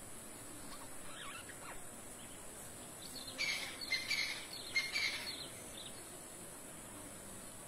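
Raccoon chittering: a few faint high calls about a second in, then a louder run of short, high-pitched chirping calls in the middle.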